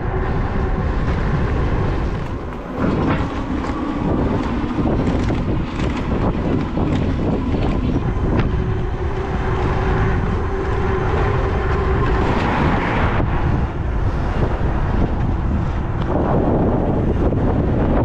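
Wind buffeting the microphone of a rider on an ENGWE M20 electric bike, over a steady hum from the moving bike that changes pitch a few times.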